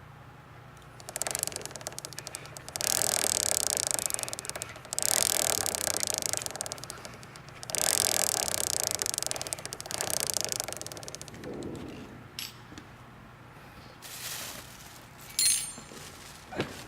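Drive chain making an abnormal noise: runs of rapid scraping and rattling, each a couple of seconds long, with short pauses between, then a few separate clicks near the end.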